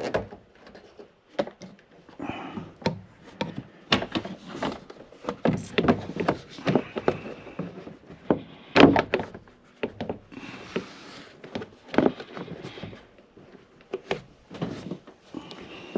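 Plastic windshield cowl trim being handled and worked into place at the base of the windshield: irregular plastic knocks, taps and scrapes, the loudest knock about nine seconds in.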